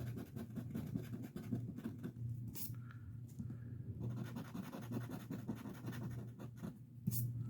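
Scratching the latex coating off a paper lottery scratch ticket: a dry rasping made of quick, uneven strokes that come and go.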